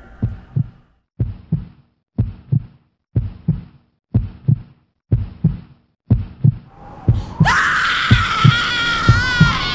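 Heartbeat sound effect: low paired lub-dub thumps about once a second. About seven seconds in, a long high-pitched scream starts over it, and the heartbeat quickens.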